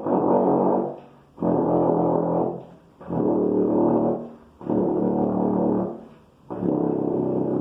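Tenor trombone playing a series of sustained low notes, about five in all, each held for roughly a second with short breaks between them.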